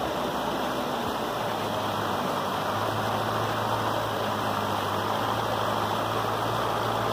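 Steady rush of muddy floodwater flowing through a washed-out creek bed, with a steady low engine hum underneath.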